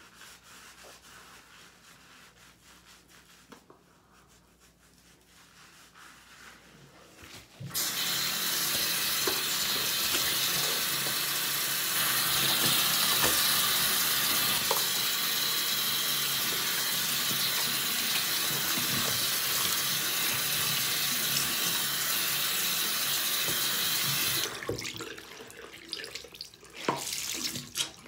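Bathroom tap running into a sink: it comes on sharply about eight seconds in, runs steadily for about sixteen seconds, then is shut off. A few small knocks and splashes follow as a washcloth is wetted and wrung.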